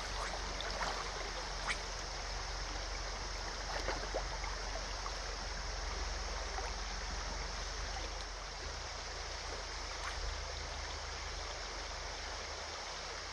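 Shallow, rocky creek riffle flowing over stones, a steady rushing hiss, with a few faint clicks here and there.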